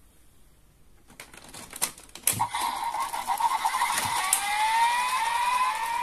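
DX Ninja Raise Buckle toy on a Desire Driver belt: a run of plastic clicks as its shuriken is spun, then the toy's electronic sound effect, a steady tone that turns into repeated rising whistle-like sweeps from its speaker.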